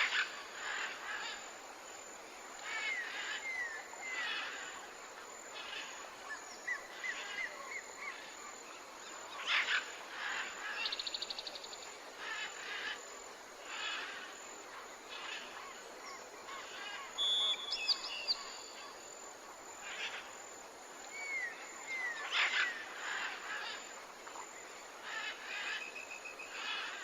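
Birds chirping and calling over a steady outdoor hiss, with short gliding notes and a quick rattling call about eleven seconds in. The same sequence of calls comes round again after about eighteen seconds, like a looped nature ambience track.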